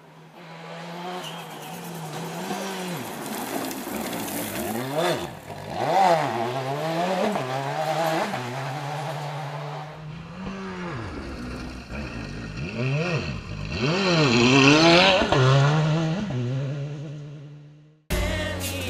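Ford Escort RS Cosworth rally car's turbocharged four-cylinder revving hard on a gravel stage, pitch climbing and dropping with each gear change, passing twice. It is loudest about 6 seconds in and again around 15 seconds in, then fades out.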